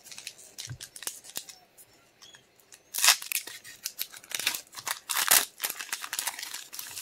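Foil Pokémon booster pack being opened by hand, with sharp crackles and rustles of the wrapper coming in short bursts, loudest about three seconds in and again around five seconds in.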